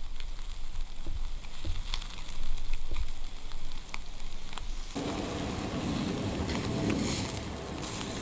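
Lobster tails grilling over hot charcoal on a clay tabletop grill: charcoal crackling and juices spitting in scattered sharp pops over a low hiss. About five seconds in, a louder, even rushing hiss comes in.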